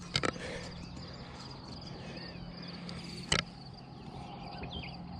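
Crickets chirping in a steady pulsing trill. Two short sharp knocks break in, one just after the start and a louder one about three and a half seconds in.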